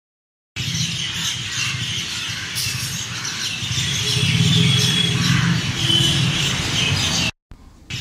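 Birds chirping with short high calls over a low steady rumble. The sound starts about half a second in and cuts off abruptly just after seven seconds.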